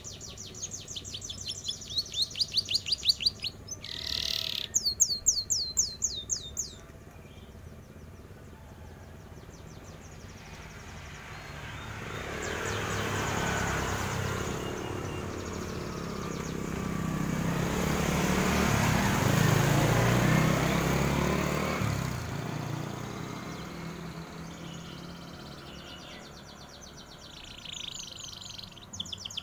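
Domestic canary singing in rapid trills of quick falling notes, for the first several seconds and again near the end. In between, a passing vehicle's rumble swells and fades over about ten seconds.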